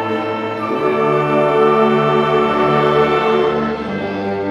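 Junior high school concert band of woodwinds and brass playing slow, held chords that change every second or so, easing slightly near the end.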